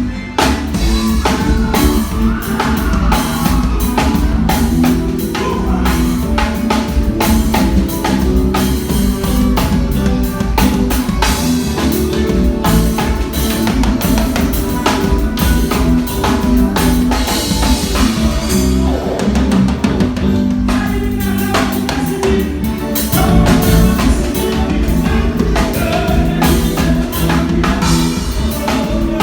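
Live band playing a praise song: a drum kit hitting steadily over bass and other instruments, with singing.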